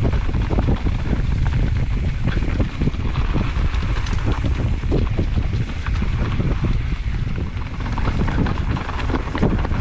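Wind buffeting an action-camera microphone over the steady rumble of mountain-bike tyres on a rough trail, with rapid clicks and rattles from the bike jolting over rocks during a descent.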